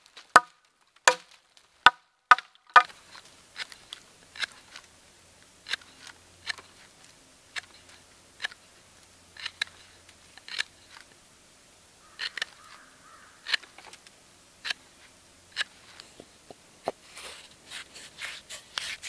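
Knife carving a wooden branch: a series of sharp, crisp cuts, roughly one a second, the first few louder with a short ring.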